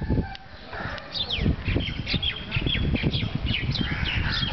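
Birds calling in short, quickly falling chirps, several a second from about a second in, over a steady low rumble.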